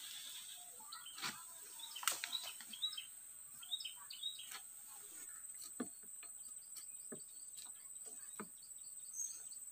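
Small birds chirping in short bursts, busiest in the first half, over a steady high-pitched hum, with scattered soft clicks and rustles.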